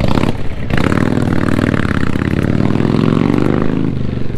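A small motorcycle engine running past close by. Its note rises about a second in, then holds and fades out just before the end.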